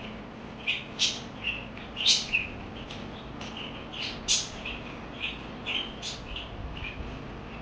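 Parakeets chirping: short, sharp chirps that come irregularly, about one or two a second.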